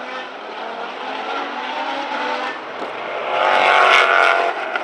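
GT racing cars' engines at speed passing on the circuit, several cars together. The sound swells about three seconds in as cars come past closer, then eases off near the end.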